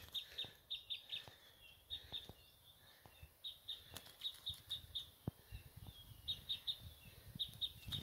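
Faint short, high chirps of a small songbird, coming in quick runs of two or three notes again and again, with a few soft clicks between.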